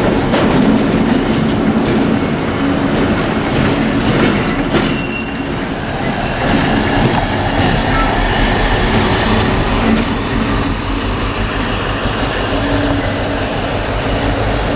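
Two Class 60 diesel locomotives running coupled as light engines, their Mirrlees diesel engines working steadily as they move away, blowing exhaust. Some clicking from the wheels on the track.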